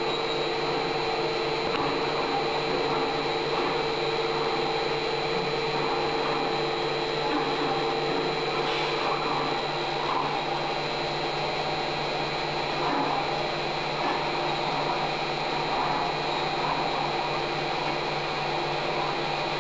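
Acra 9x42 knee mill converted to CNC running, a steady motor hum with a constant high whine and only slight changes in the noise now and then.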